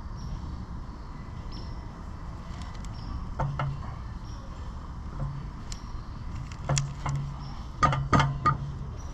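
Sharp metal clanks and knocks from steel parts being handled, two about three and a half seconds in and a louder cluster near the end, over a steady low hum.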